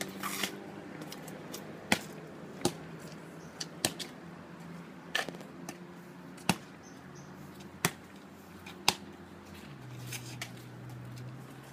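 A rubber dodgeball hitting asphalt and bouncing, seven sharp smacks at uneven intervals, over a low steady hum.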